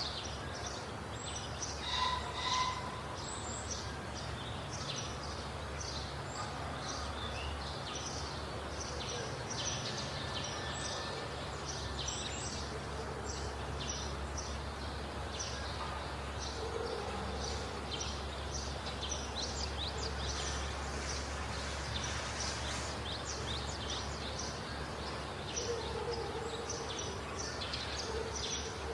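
Many small birds chirping and calling in woodland, short high notes one after another, over a steady low rumble. A louder, lower call sounds twice about two seconds in.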